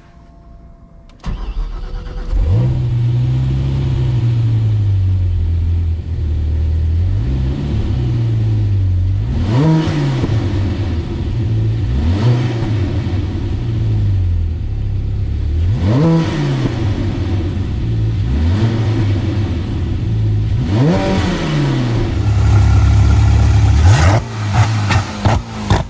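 Zenvo TSR-S hypercar's supercharged V8 starts about a second in and settles to a steady idle. It is then blipped about six times, each rev rising quickly and falling back. Near the end the engine gives a run of sharp, evenly spaced pops.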